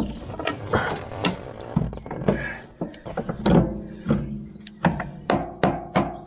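Metal knocks and clanks of hand tools working on a mini excavator's swing motor as it is fitted back in, irregular at first. From about five seconds in, a hammer strikes steadily, about three blows a second, each with a short metallic ring.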